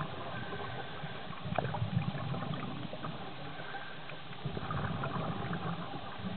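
Muffled underwater noise heard through a dive camera's housing: a low rushing that swells twice, with scattered faint crackles and clicks.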